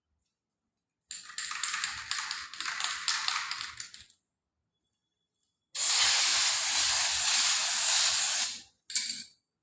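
Aerosol spray can of dye-penetrant testing chemical spraying in three bursts: an uneven, sputtering spray about a second in lasting some three seconds, then a steadier, louder spray of nearly three seconds, then a short puff near the end.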